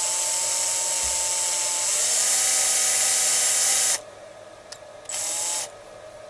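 Cordless drill spinning a small tube (core) drill as it starts cutting into a wooden block around a broken screw. It runs for about four seconds, the tone dropping a little as it loads up about two seconds in, then stops, and gives one more short burst about a second later.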